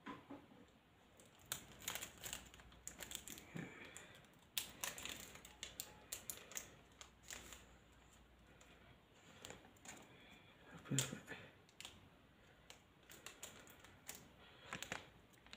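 Faint, scattered crinkling and clicking of a foil Pokémon card booster pack wrapper being handled and torn open.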